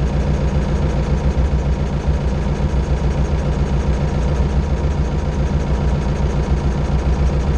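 Mercedes-Benz MB trac 800 tractor's diesel engine idling steadily.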